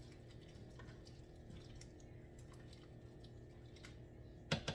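Spoon stirring cream into chowder in a crock pot: faint light ticks and scrapes, with two sharper knocks near the end.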